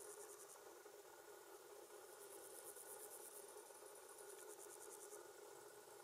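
Faint, steady drone of a Claas Lexion 670 combine harvester at work. Over it, insects chirp in high, rapidly pulsing trills three times, each a second or so long.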